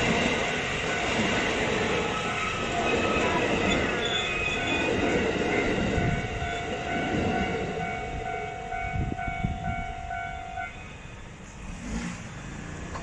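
A train passing on the line, its running noise fading away, with a steady whine that stops about ten seconds in.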